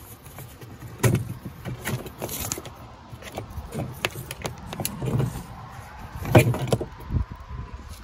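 Irregular clicks, knocks and rustling of handling as a refrigerator's power cord is moved and the phone is shifted, with the loudest knocks about a second in and about six and a half seconds in.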